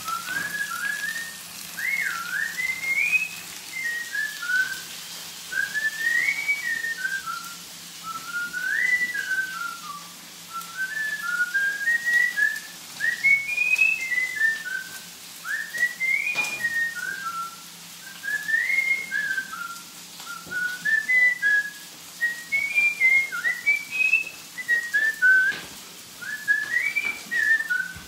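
A person whistling a tune: short gliding notes rising and falling in repeated phrases, over a faint steady low hum.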